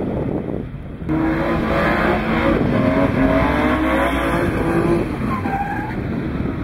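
BMW E36 325i straight-six engine revving hard through a drift, its note rising and falling as the driver works the throttle, from about a second in. Before that, wind rushes on the microphone.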